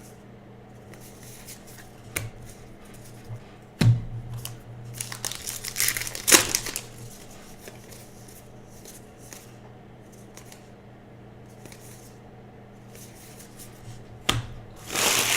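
Trading card pack wrappers crinkling and being torn open, with a burst of rustling about five to six and a half seconds in. Two sharp knocks, one about four seconds in and one near the end.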